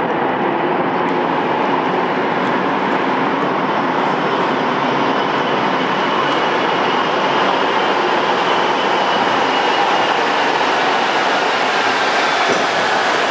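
Rubber-tyred Montreal Metro train approaching through the tunnel and pulling into the station: a loud, steady rushing rumble that grows a little louder, with a faint high whine near the end.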